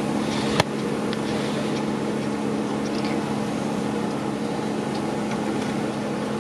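Steady mechanical hum with a constant low tone, with one sharp click about half a second in and faint small clicks scattered through it.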